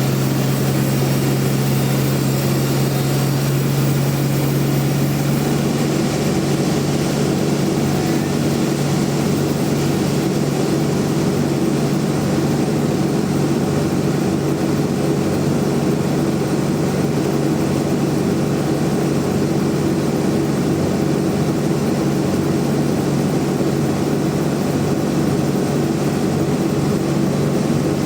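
Band sawmill running with a steady machine drone. Its tone shifts about five seconds in, then holds steady again.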